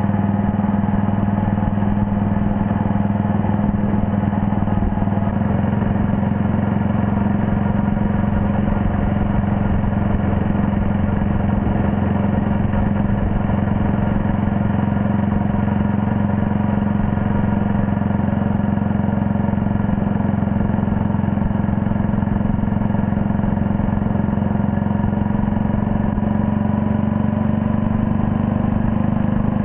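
1939 Red Panther Model 40's single-cylinder four-stroke engine running steadily as the motorcycle cruises on the road. The engine pitch rises slightly near the end as it picks up speed.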